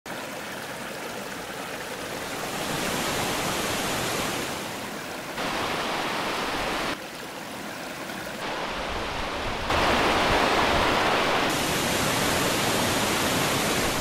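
A mountain stream and waterfall rushing over rocks: a steady roar of water that jumps abruptly louder or quieter several times.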